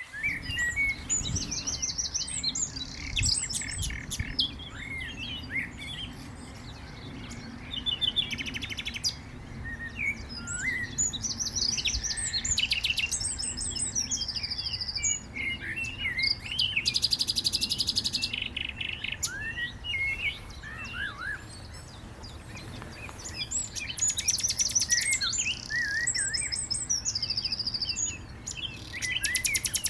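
Common nightingale singing: varied phrases of fast repeated notes, trills and sliding whistles, with short pauses between phrases.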